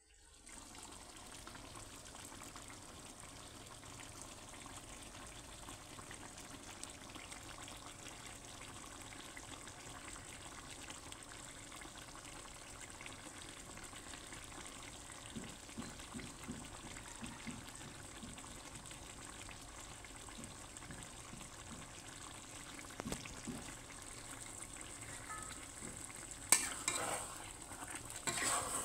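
Chicken in coconut-milk chili gravy simmering in a stone-coated wok, with a steady bubbling sizzle and a few small pops. Near the end a spatula stirs the chicken and scrapes against the pan.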